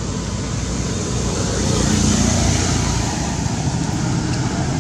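Steady outdoor background rumble and hiss, swelling slightly about two seconds in.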